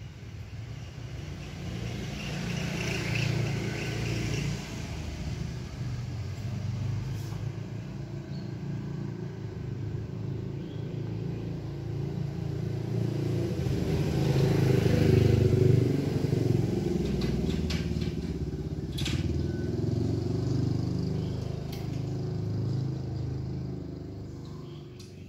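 Low engine rumble of passing road traffic, swelling about three seconds in and loudest about halfway through before fading near the end, with a few faint clicks in the second half.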